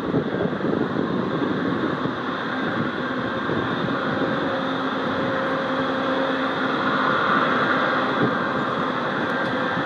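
Jet airliner's engines running, a steady rushing noise with a faint whine that grows a little louder past the middle and eases near the end.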